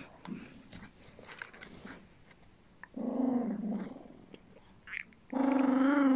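Chihuahua growling over a candy it is holding as a hand reaches toward it: a short low growl about three seconds in, then a longer, louder one near the end. Small clicks of the dog mouthing the candy come before.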